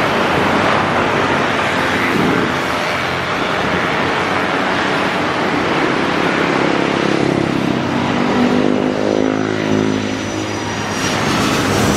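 Jet airliner passing low on its landing approach: a loud, steady rush of engine noise, with a pitched drone building in the second half and a thin high whine near the end.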